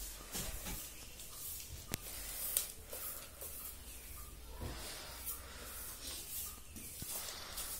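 Broom sweeping a floor: a run of soft, uneven swishing strokes, with a couple of light knocks about two seconds in.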